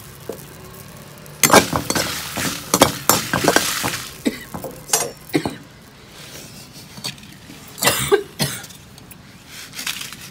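Metal kitchenware being handled: a quick run of clinks and knocks in the first half, then a few scattered single knocks.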